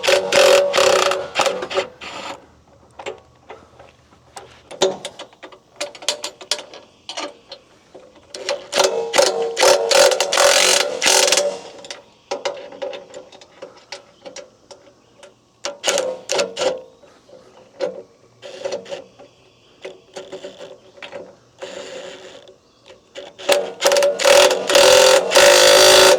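Hand ratchet wrench turning a nut, clicking rapidly in four runs separated by pauses, with a metallic ring under the clicks.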